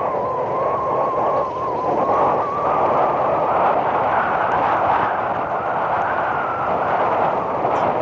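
Motorcycle riding along a rough dirt track: a steady engine drone with a faint wavering whine that rises a little past the middle, under heavy rumbling wind and bump noise on the microphone.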